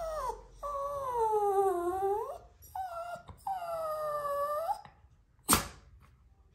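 Bichon Frise whining: four drawn-out whines in about five seconds, the two long ones sliding down and back up in pitch. The dog is fussing in frustration at a treat toy stuck up out of reach. A single sharp click comes near the end.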